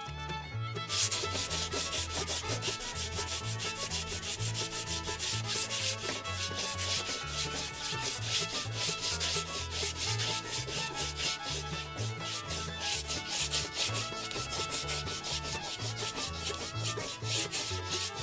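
Sandpaper on a sanding block rubbed in quick, closely spaced back-and-forth strokes along a glued-up rod blank, sanding off excess glue. The strokes start about a second in and then keep on steadily.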